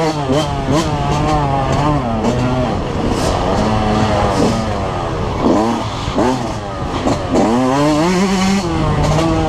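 Yamaha YZ125 two-stroke single-cylinder dirt bike engine running hard, its pitch rising and falling again and again with the throttle while racing through the woods, with a few sharp clacks over it.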